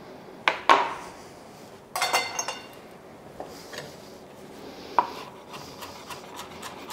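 Metal kitchen utensils knocking and clinking against a countertop and cutting board: a few separate knocks, with a ringing metallic clatter about two seconds in. Near the end, a chef's knife starts chopping parsley on a cutting board in quick light taps.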